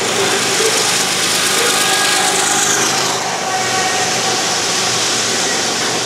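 Double-stack container well cars of a long freight train rolling past: a steady, loud grinding of steel wheels on rail.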